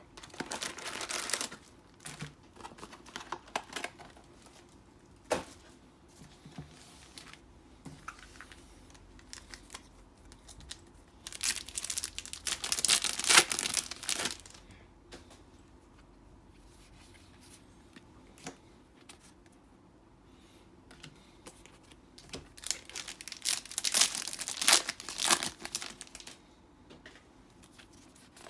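Plastic trading-card booster packaging, a box's wrap and foil packs, being crinkled and torn open. The tearing comes in three loud bursts, at the start, near the middle and near the end, with small rustles and clicks between them.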